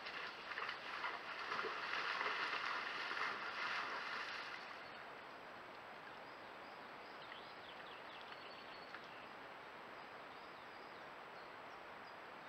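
Red deer hind and calf moving off through tall grass by a stream: rustling and swishing for the first four seconds or so, fading out. After that only a steady faint hiss.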